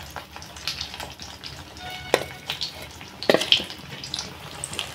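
Battered fish pieces deep-frying in hot oil in a kadai, a steady sizzle with irregular crackles and pops.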